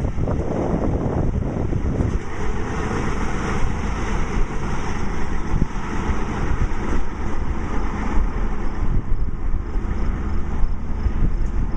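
Diesel semi truck pulling a refrigerated trailer driving slowly past at close range, its engine running steadily at low speed.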